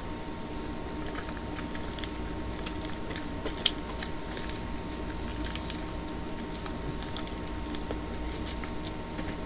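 Sticky slime being kneaded and stretched by hand, giving scattered small wet clicks and pops, one louder about three and a half seconds in, over a steady low room hum.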